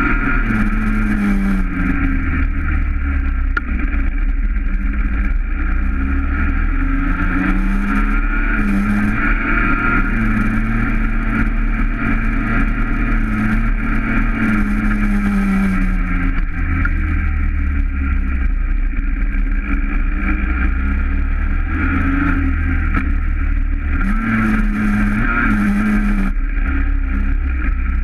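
Small two-stroke single-cylinder engine of a Yamaha PW mini motorbike running under way, its pitch rising and falling several times as the throttle opens and closes.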